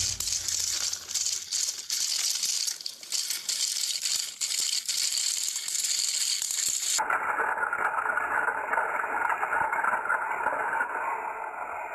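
Battery-powered Plarail toy train motors and plastic gearboxes buzzing and rattling as two locomotives push against each other on plastic track. About seven seconds in, the sound abruptly turns duller.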